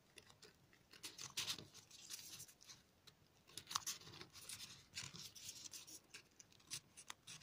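Folded paper triangle modules of a 3D origami model rustling and scraping as new pieces are pushed into the rows, in faint, irregular crackles.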